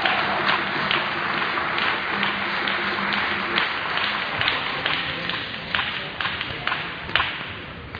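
Table tennis balls clicking irregularly off tables and bats, several at a time, over the steady background noise of the hall, which quietens near the end.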